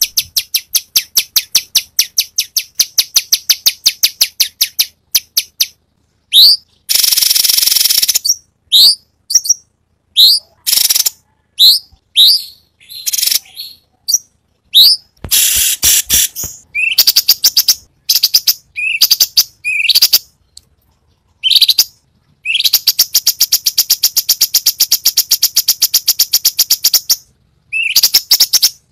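Cucak cungkok songbird singing a loud, varied song: a fast train of repeated high notes, then short upward-sweeping whistled notes broken by long, very rapid trills, the rapid-fire 'tembakan' phrases kept for training other songbirds.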